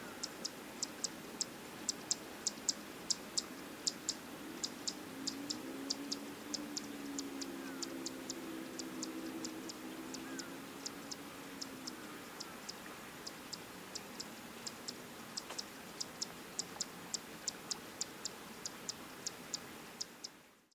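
A sharp, high tick repeated steadily about three times a second. In the middle comes a low hum that wavers up and down.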